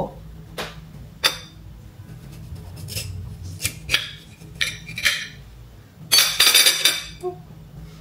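Plates and cutlery clinking: a handful of separate clinks and knocks, then a longer, denser clatter about six seconds in.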